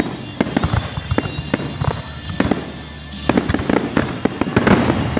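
Fireworks grand finale: aerial shells bursting in rapid succession, several bangs a second, growing denser about three seconds in, with a crackling hiss near the end.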